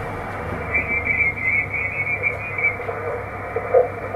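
ICOM HF transceiver's receiver audio while the main dial is tuned across the sideband band: steady band hiss, a high whistling tone from about one second in to nearly three seconds, and brief garbled fragments of off-tune signals near the end.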